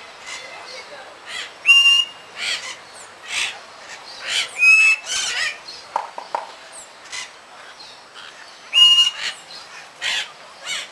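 A flock of parakeets chattering with many short, harsh chirps and squawks. Three clear, pure whistled notes stand out, about two, five and nine seconds in.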